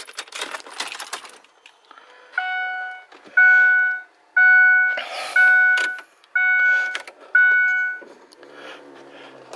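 Ford truck's dashboard warning chime sounding six times, about once a second, after the ignition key is turned to on with the engine off. Key clicks in the ignition come just before it.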